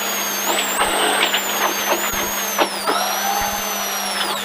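BMW M3 Compact rally car heard from inside the cabin, its engine revs dipping and rising again as it takes a tight hairpin, with scattered knocks and ticks and a steady low hum underneath.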